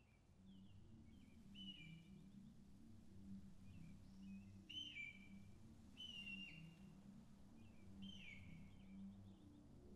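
Faint bird calls: short whistled calls, some falling in pitch at the end, repeated every second or two over a low steady hum.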